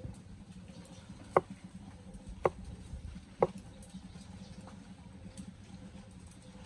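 Three sharp knocks about a second apart, then a fainter one, over a low steady hum.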